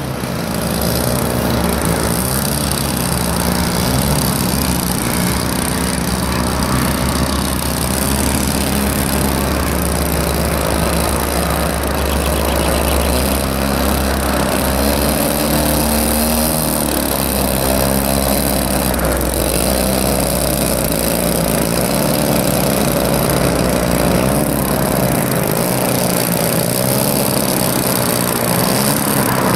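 The two DLE 35 single-cylinder two-stroke gasoline engines of a 1/8-scale C-47 model running on the ground at low throttle, their pitch wavering a little up and down.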